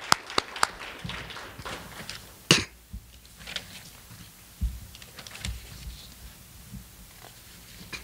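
A few sharp hand claps from one person close to a microphone, about three a second, stopping within the first second. Then papers and a folder handled at a lectern: rustling, the loudest about two and a half seconds in, and a few soft low bumps.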